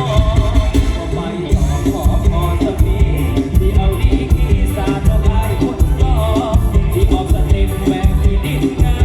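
Loud amplified music with a singer over a steady, heavy bass beat, from a mor lam stage show.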